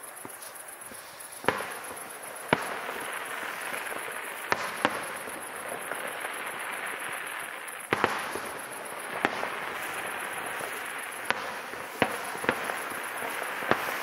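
Aerial firework shells bursting in a display: about ten sharp bangs at uneven intervals over a steady hiss.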